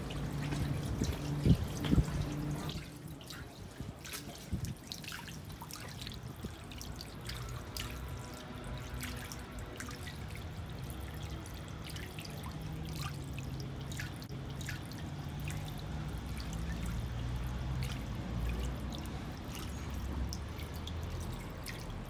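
Water trickling and dripping down stone steps: street-cleaning runoff released from the Paris gutter system, running over the stairs in a steady flow. A few sharp knocks sound in the first two seconds.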